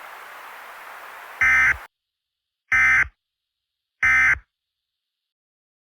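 Emergency Alert System end-of-message data bursts: three short, buzzy digital screeches about a second and a quarter apart, marking the close of the warning broadcast. A faint radio hiss sits under the first burst and cuts off just after it.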